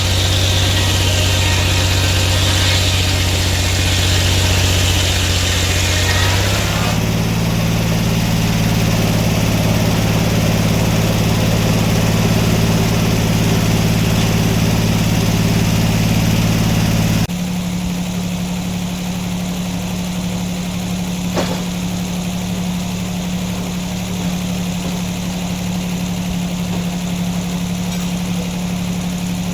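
Sawmill engine running under load with the hiss of the blade cutting through a black oak log. About six seconds in the cutting hiss stops and the engine picks up speed as the load comes off. About 17 seconds in it settles to a quieter, steady running, with one short click a few seconds later.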